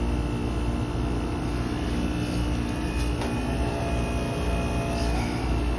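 Heat pump outdoor unit running: a steady low hum with a faint high whine over it.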